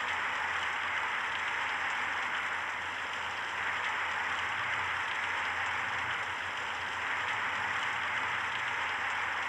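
Rain falling steadily on a water surface, an even rushing hiss with no breaks.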